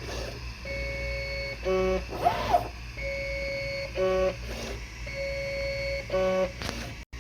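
3D printer's stepper motors whining at steady pitches as the print head and bed move, in a cycle that repeats about every two seconds: one held tone for about a second, then a short run of several tones. A low steady hum sits underneath, with a brief warbling sound about two and a half seconds in. The repeating moves fit the printer mapping out its bed before the first print, as the owner thinks.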